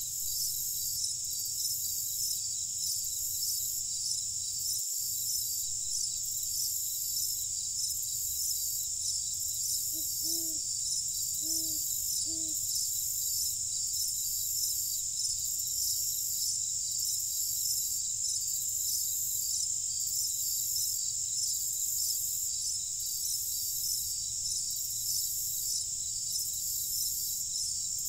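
Dense chorus of crickets chirring steadily, with a higher chirp pulsing about once a second. About ten seconds in, three short low calls are heard.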